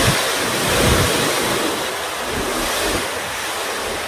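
Tata Signa tipper truck dumping a load of sand: a steady rushing noise as the sand slides out of the raised body, with the truck's engine running. Low rumbles come at the start and again about a second in.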